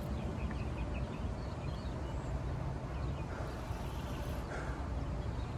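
Steady outdoor background noise, mostly a low, uneven rumble, with a few faint short chirps over it.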